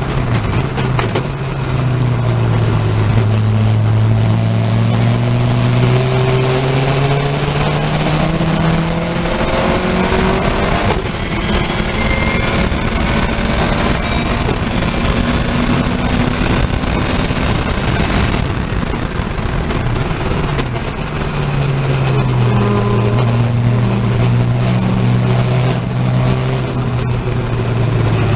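In-car sound of a race car's engine under full throttle, its note rising through the gears with upshifts about 11 and 14 seconds in. It then lifts off and brakes in the second half, with stepped downshifts before a corner.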